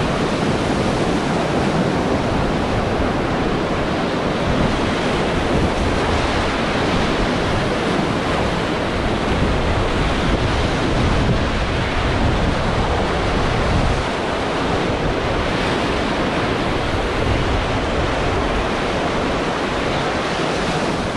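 Fast river water rushing steadily around a raft, with wind noise on the microphone.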